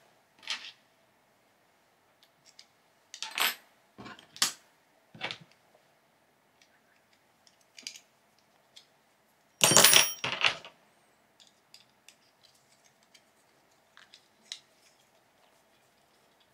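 Scattered clicks and small metallic clinks of screws, hardware and a hex key being handled while the two 3D-printed halves of a Voron Clockwork2 extruder are screwed together. A louder cluster of rattling clinks comes about ten seconds in.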